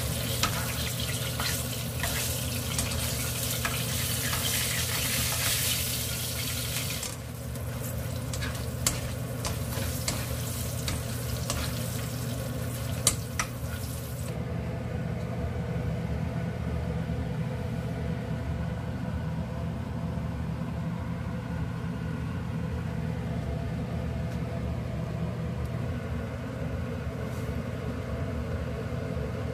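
Oil sizzling as flour-battered chili peppers deep-fry in a wok, with a metal strainer ladle clicking and scraping against the pan. The sizzling stops abruptly about halfway through, leaving a steady low hum.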